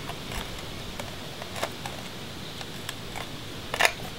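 A few light clicks and taps from handling an aluminum threshold as it is pressed and shifted into position, with a sharper double click near the end.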